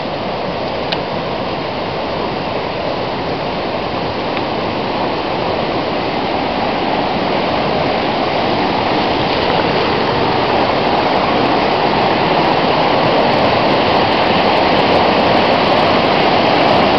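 Steady rush of river water, growing gradually louder.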